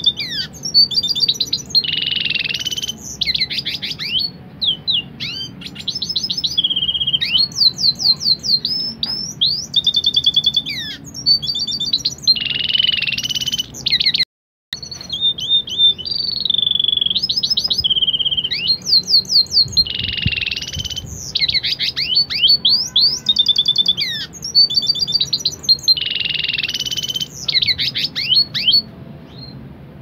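Red siskin × canary hybrid singing a long, varied song of rapid trills, fast whistled runs and buzzy notes, breaking off for a moment just before halfway.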